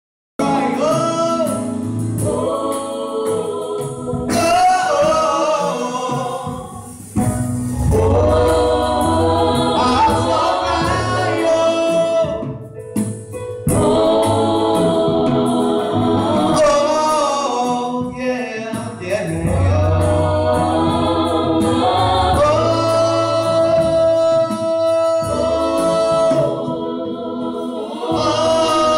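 Gospel vocalists, male and female, singing into microphones over a low bass accompaniment, with a brief pause about halfway through.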